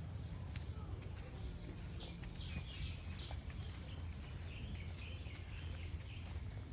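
Birds chirping in short calls over a steady low rumble, likely wind on the microphone, with a few faint clicks and knocks.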